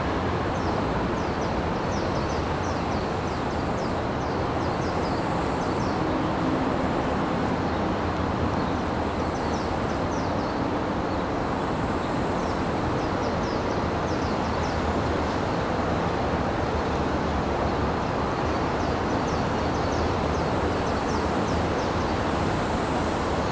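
Steady hum of distant city traffic on elevated highways, with runs of short, high chirps coming and going.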